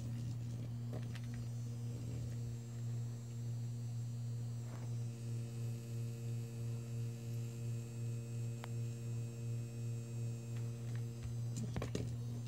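Steady low electrical hum with a few higher overtones, pulsing slowly and evenly for several seconds midway. Near the end, a few light taps as a cat bats a small toy on the tile floor.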